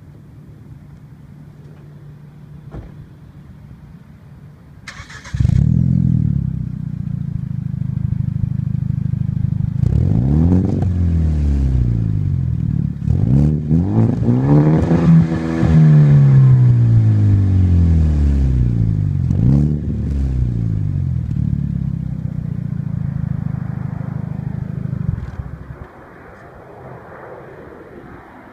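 2013 Hyundai Genesis Coupe 2.0T's turbocharged four-cylinder running through a Turbo XS racepipe and CNT Racing RS single-exit cat-back exhaust. It idles quietly, then about five seconds in a short hiss comes and the exhaust note gets much louder. It is revved about four times, the longest rev about fifteen seconds in, settles back to idle, and drops quieter near the end.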